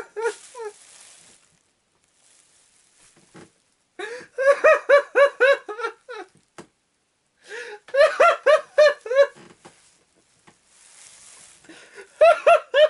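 A man laughing hard in fits: three bouts of rapid ha-ha pulses, about four, eight and twelve seconds in, with breathy gasps and near-quiet between them.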